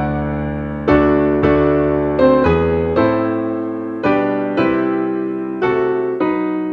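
Hymn tune played in chords on a piano, each chord struck and left to die away, with no singing.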